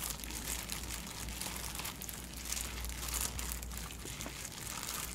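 Thin plastic crinkling and rustling as it is handled, a run of small irregular crackles throughout.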